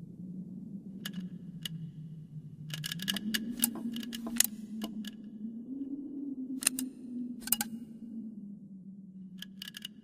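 Animated robot's mechanical sound effects: a low steady hum that slowly rises and falls in pitch, with scattered sharp metallic clicks and ticks, the densest flurry a few seconds in.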